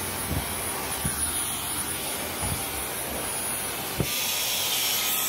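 Cordless stick vacuum running as it sucks up clumps of hair from carpet: a steady rush of air with a faint high whine. About four seconds in there is a knock and the sound turns a little louder and brighter as the hair clogs it.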